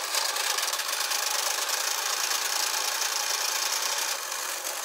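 Kodak instant camera's motor running to eject the dark slide from the film pack, a steady whirring rattle of motor and gears that eases off near the end as the slide comes out.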